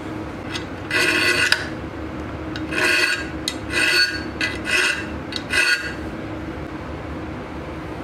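Hand file rasping across the steel pivot end of a folding-knife blade clamped in a bench vise: about five short push strokes in the first six seconds, then it stops.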